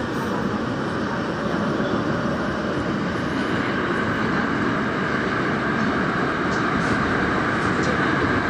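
Daejeon Metro Line 1 train running through a tunnel: a steady rolling rumble of wheels on rail, gradually getting louder.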